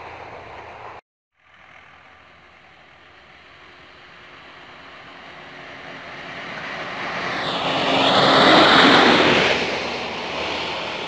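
Small yellow railway maintenance motor trolley approaching and passing on the track, its engine and wheels on the rails growing louder to a peak about eight to nine seconds in, then fading as it goes by.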